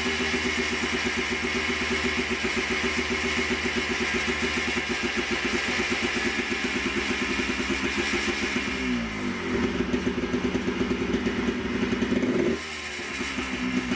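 Yamaha Blaster's two-stroke single-cylinder engine running through an FMF Fatty expansion pipe and Powercore 2 silencer, with a steady fast putter at idle. About nine seconds in its note drops and changes, and near the end it dips briefly before picking back up.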